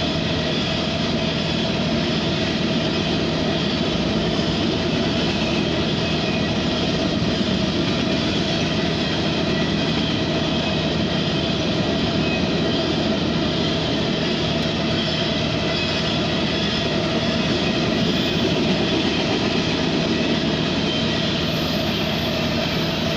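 Tank cars of a CSX freight train rolling past, a steady rumble and rush of wheels on rail that holds even throughout.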